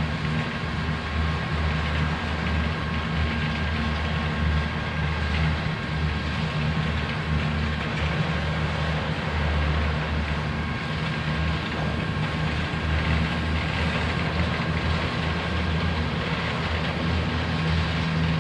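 BNSF coal train's cars rolling steadily through a grade crossing: a continuous low rumble of steel wheels on rail. A steady ringing tone from the crossing signal's warning bell sits over it.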